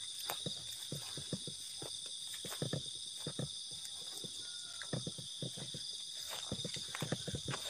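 Footsteps crunching irregularly over the forest floor, over a steady high-pitched chorus of night insects.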